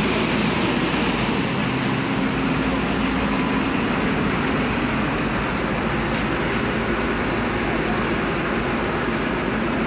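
Heavy road-construction machinery running with a steady engine drone and a faint held hum, with no breaks or changes.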